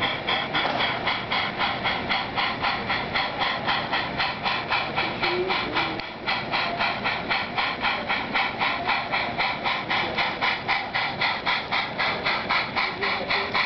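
Sound-equipped HO-scale model of Strasburg Rail Road #90 steam locomotive, its on-board sound system chuffing in a steady, even rhythm of about four or five hissing chuffs a second as it moves slowly along.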